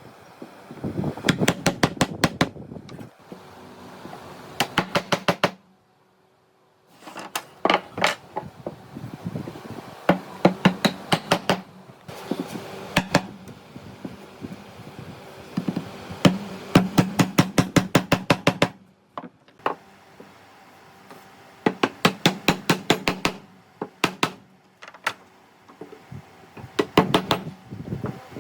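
Mallet tapping a carving chisel into wood in quick runs of sharp strikes, several a second, with short pauses between runs.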